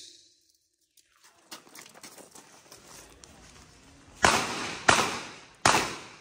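Revolver shots on a shooting range: a shot dies away at the start, then a few seconds of faint clicks and shuffling, then three shots in quick succession about two-thirds of a second apart near the end, each with a short ringing tail.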